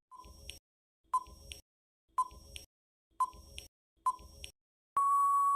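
Countdown timer sound effect: five short double ticks, about one a second, then a long steady beep near the end marking time up.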